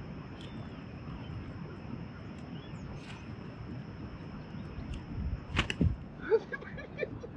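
Steady low rushing background with a few faint, short chirps. About five and a half seconds in come a couple of loud knocks, then several short, pitched animal calls.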